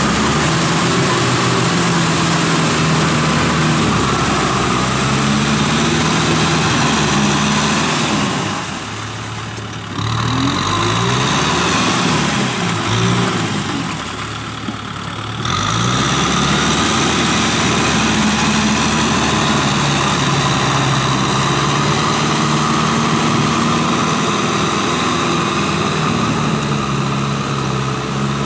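Kubota M6040 tractor's four-cylinder diesel engine running while it pulls a rotary tiller through flooded paddy mud, with a steady hiss over it. Its note dips and climbs back twice in the middle.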